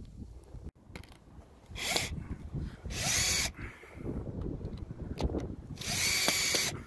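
Bosch cordless drill-driver driving screws, running in three short bursts, the last one the longest, with handling knocks between.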